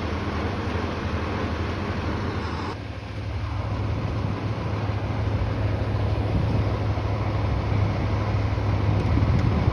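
Vehicle engine running at idle: a steady low rumble under a hiss of traffic-like noise, growing louder near the end.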